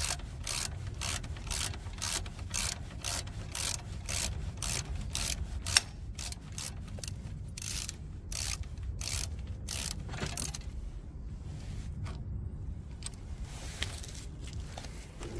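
Socket ratchet wrench being swung back and forth on a bolt, its pawl clicking in a short burst on each return stroke, about twice a second. The strokes stop about two-thirds of the way through with one sharp click.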